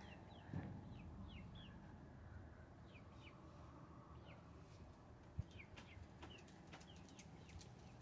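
Faint, scattered short falling peeps of backyard chickens. A soft thump comes about half a second in and a sharp knock at about five seconds.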